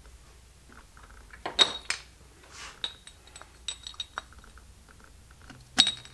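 Subaru STI aluminium piston, with its steel wrist pin, clinking and knocking against the steel pan of a digital scale as it is handled and set down to be weighed for balancing. The clinks are scattered and sharp with a light metallic ring, and the loudest comes near the end as the piston is set on the pan.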